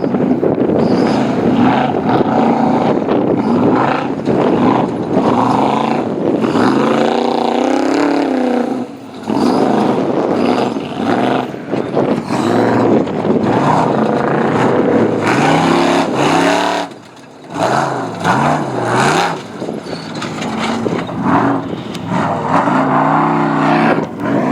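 Off-road race car engine running hard, its pitch rising and falling repeatedly as the throttle is worked, with the engine note dropping away briefly twice.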